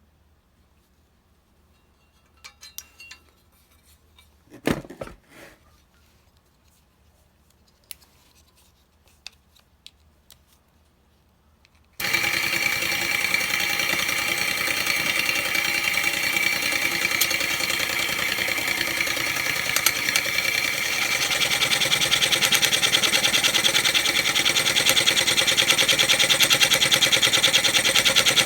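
Scattered faint clicks and a knock, then about twelve seconds in a homemade mini scroll saw starts abruptly and runs steadily: a 13 V geared motor turning a crank that drives the spring-steel saw arm up and down in a fast, even rattle. It gets a little louder about two-thirds of the way through.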